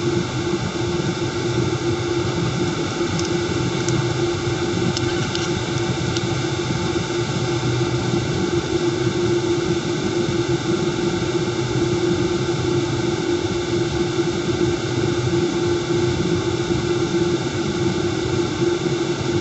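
Wind tunnel fan running steadily at speed: an even rush of air with a strong, steady hum.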